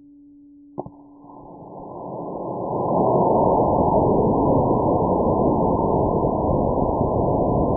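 Slowed-down sound of a three-motor black-powder model rocket cluster lifting off: a steady low hum, a sharp pop just under a second in, then a deep, muffled rushing hiss of the motors' thrust that builds over about two seconds and holds steady.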